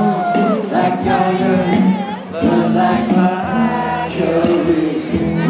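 Live band music with singing.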